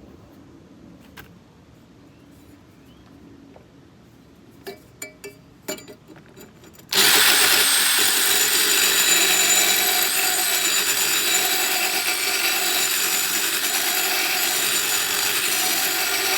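A few light clicks and knocks, then about seven seconds in a DeWalt impact driver spinning a router grinding stone starts up and runs steadily, grinding the edge of a lawn mower blade with a harsh rasping whine.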